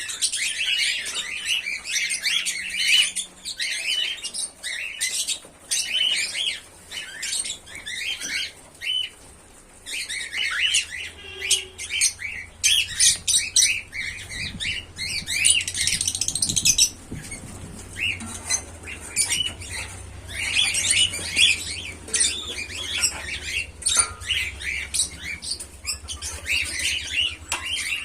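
Pearl cockatiels chirping and squawking in quick, busy runs of high calls, with brief lulls, and a few sharp clicks mixed in.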